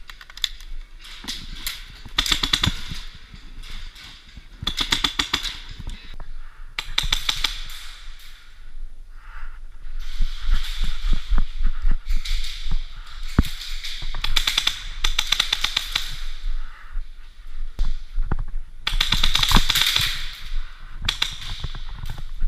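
Airsoft guns firing in repeated short full-auto bursts, each a rapid rattle of sharp clicks lasting about a second.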